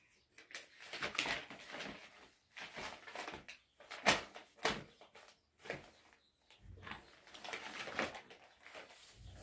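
Plastic bag crinkling and rustling in irregular bursts as a toddler handles it, with one sharp rustle about four seconds in.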